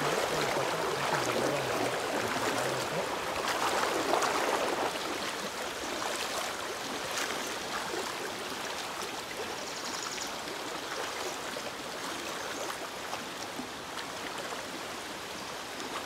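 A knee-deep, fast-flowing stream rushing steadily, with water swishing and splashing around legs as people wade across it. It is a little louder in the first few seconds, then settles.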